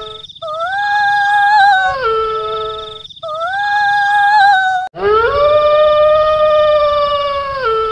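Three long, drawn-out howling wails, each sliding up at the start, holding a high note and dropping in pitch at the end, with a thin wavering high tone above them. It is offered as the eerie wail of a kuntilanak.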